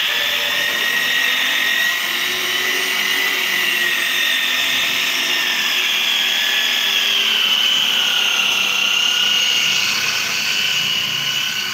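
Handheld corded electric drill spinning a round pad against a plastic car headlight lens: a steady high motor whine whose pitch drifts a little.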